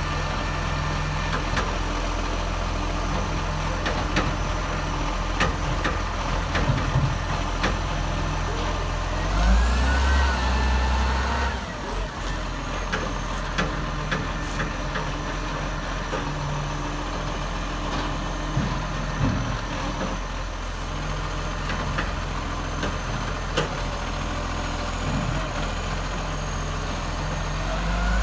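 Diesel engine of a side-loader garbage truck running at idle, with scattered knocks and clanks. About ten seconds in, the engine revs up for two seconds and then drops back.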